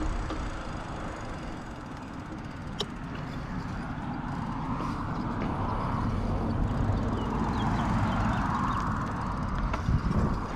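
Wind rushing over the microphone and tyre noise on asphalt while riding a bicycle, a steady rumbling rush that swells twice in the middle.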